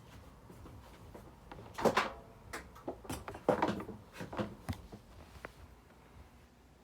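Knocks and clatter of a microwave being handled and unplugged from its wall socket, loudest about two seconds in and again a little past three, then dying away.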